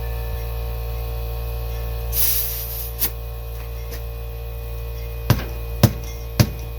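Air compressor running with a steady hum, with a brief hiss of air about two seconds in. Rubber mallet knocking on a tractor tire to seat its bead on the rim: one blow, then three more about half a second apart near the end.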